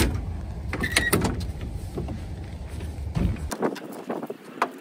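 A pickup tailgate drops open with a clunk, followed by scattered knocks and rustles as a soft roll-up tonneau cover is rolled back over the truck bed.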